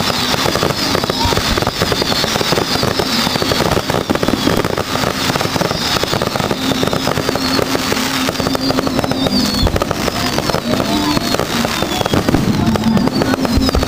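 Aerial fireworks display: dense, continuous crackling and popping of bursting shells with thick bangs, and high falling whistles repeating over the top.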